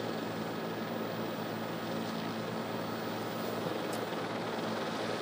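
Steady drone of a news helicopter's engine and rotor, heard from inside its cabin, holding an even level throughout.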